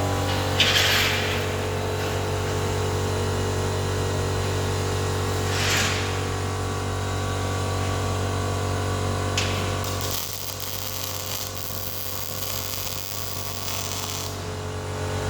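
MIG welding arc crackling steadily over the low hum of the welding machine. The sound drops a little about ten seconds in.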